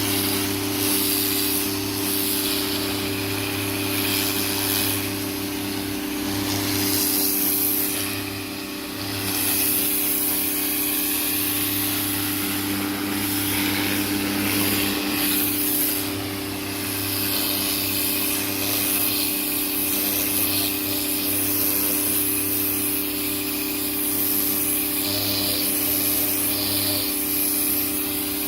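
Greenworks 1600 psi electric pressure washer running, its motor and pump humming steadily under the hiss of water spraying from the turbo nozzle; the spray dips briefly twice.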